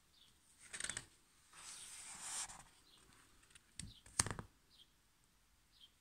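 Pages of a picture book being turned by hand: a papery rustle with clicks about a second in, a longer sliding swish of paper, then two sharp taps of the page and cover near the middle. Faint high chirps repeat about once a second under it.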